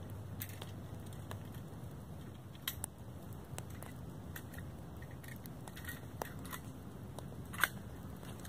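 Steady low outdoor background noise with a few scattered sharp clicks and crackles, one louder click near the end.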